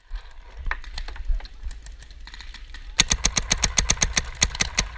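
A paintball marker firing a rapid string of about fifteen shots, roughly eight a second, for nearly two seconds starting about three seconds in. Scattered fainter pops come before it.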